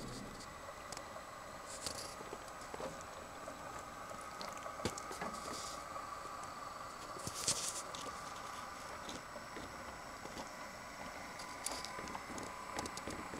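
Model railcar running along the layout track: a faint steady motor hum with scattered small clicks from the wheels on the rails and joints. Four short hissing bursts stand out, the loudest just past the middle.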